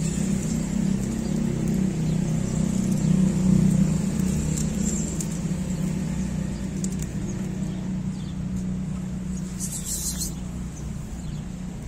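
A motor vehicle's engine running in the street: a steady low hum that swells to its loudest about three seconds in and then slowly fades. A short high hiss comes near the end.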